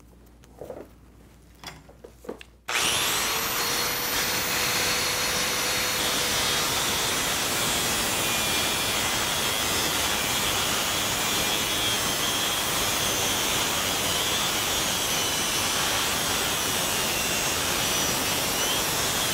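A DeWalt 4.5-inch angle grinder with a cutting wheel cuts through the weld holding a steel bumper to a vehicle frame. After a few faint handling sounds, the grinder starts suddenly about three seconds in and runs loud and steady, a grinding hiss with a thin high whine over it.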